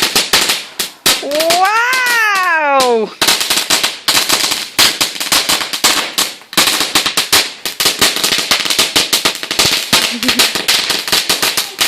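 Fireworks crackling: a dense, rapid string of sharp cracks that keeps up throughout. About a second in, a single pitched tone rises and then falls away over about two seconds.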